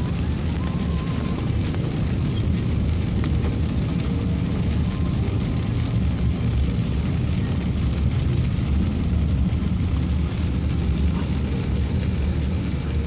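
Steady in-cabin rumble of a car driving through rain: engine and tyres on a wet road, with rain hitting the car and windshield, heard from inside.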